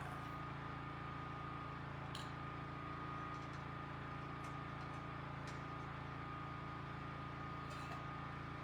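Generator running steadily in the background, a constant hum with a thin high whine, broken only by a few faint clicks.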